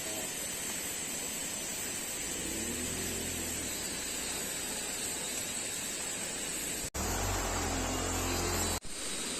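Steady outdoor hiss with faint distant voices; it cuts off abruptly about 7 seconds in, followed by a louder stretch with low rumble that cuts off again near the end.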